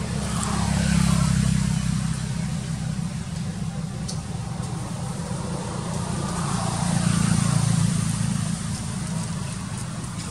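Low hum of motor traffic going by, swelling twice, near the start and again past the middle, as vehicles pass.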